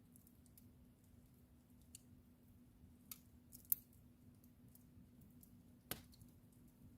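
Wood fire in a fireplace crackling softly: scattered small pops and ticks, with the sharpest pops a little after three seconds and near six seconds, over a faint steady low hum.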